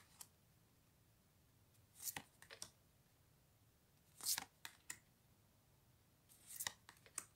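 Large oracle cards being slid off the front of a hand-held deck and tucked behind it one at a time: three soft card swishes, each with a small tap or two, about two seconds apart.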